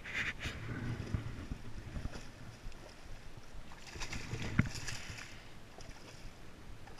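Close rustling and handling knocks as someone moves through long bankside grass, with one sharp knock about four and a half seconds in.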